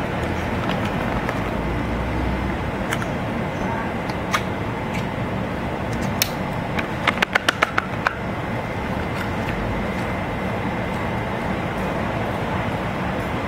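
Steady hum of road traffic, with a few sharp clicks about halfway through and a quick run of about six clicks just after.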